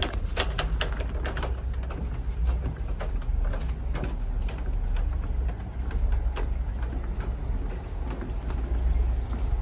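Outdoor ambience during a walk: a steady low rumble with scattered short clicks and taps.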